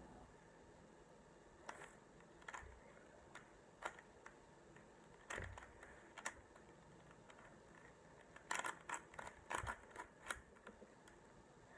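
Faint plastic clicks of a Rubik's Cube's layers being turned by hand, a few scattered single turns and then a quick run of turns near the end.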